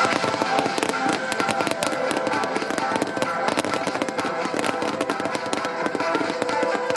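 Fireworks display: fountains and glittering falling stars give a rapid, dense crackling and popping, over music playing.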